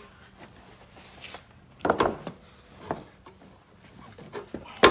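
Plastic mower discharge chute and its bolt being handled and fitted against the steel mower deck: a clatter about two seconds in, a single click a second later, and a sharp knock near the end.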